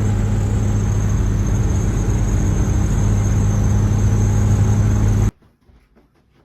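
A vehicle engine idling steadily at an even, unchanging pitch. The sound stops abruptly about five seconds in.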